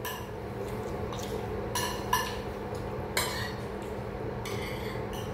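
Metal spoons clinking and scraping against plates while eating, with several sharp clinks, the clearest about two and three seconds in. A steady low hum runs underneath.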